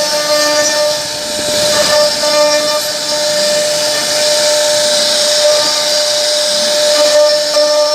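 CNC router spindle running steadily as its bit carves a wooden board: a constant high whine over a continuous rushing cutting noise.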